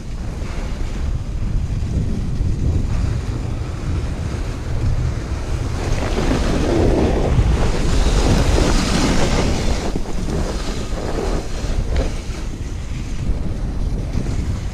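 Wind rushing over a GoPro microphone together with the hiss of a toboggan sliding fast over groomed snow. The noise swells louder and hissier for a few seconds midway through.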